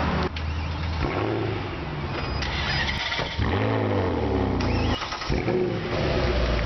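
High-performance car engines heard through their exhausts in a run of short clips, each cut off abruptly. There is a steady idle and a blip of revs that rises and falls about halfway through.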